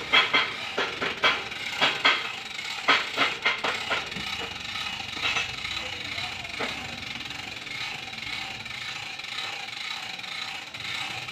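Hand-cranked winch on a home-made steel-pole boom hoisting a steel truss, its ratchet clicking in an irregular run over the first four seconds, with a couple more clicks later and steady mechanical noise in between.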